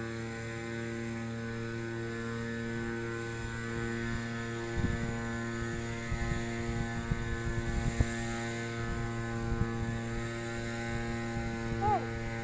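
Small engine of a crop sprayer running at a steady speed, a constant pitched hum. From about five seconds in, irregular low knocks are heard over it.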